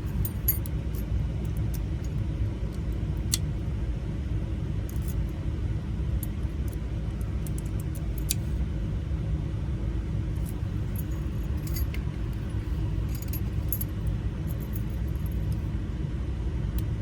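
Small metal lock parts clicking and clinking as an ignition lock cylinder is handled and assembled, in scattered light ticks over a steady low rumble.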